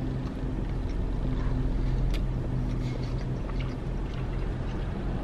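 Steady low hum of a car idling, heard inside the cabin, with a few faint mouth clicks from chewing.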